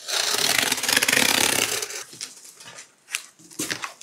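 Box cutter slicing through the packing tape along a cardboard box's seam: a continuous ripping rasp for about two seconds. Then quieter scrapes and taps as the cardboard flaps are handled open.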